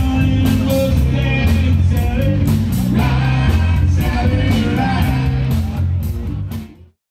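Live rock band playing: a singer over electric guitar, bass and drums, fading out near the end.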